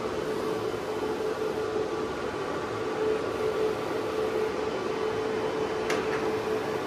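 Epson SureColor S60600 wide-format printer running as it prints a vinyl banner: a steady whir with a constant hum, and a faint click about six seconds in.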